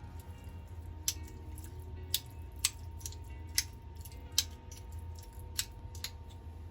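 Kitchen prep sounds: about seven sharp, irregularly spaced clicks and taps of utensils over a steady low hum.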